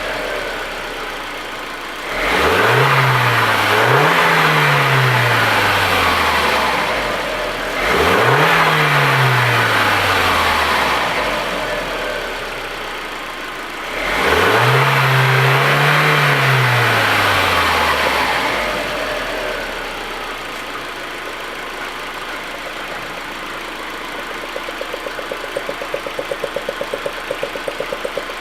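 Audi A4 1.8T turbocharged four-cylinder engine revved up three times, each rev held for a few seconds before the engine speed falls back to idle. Near the end it settles at idle with a regular pulsing beat.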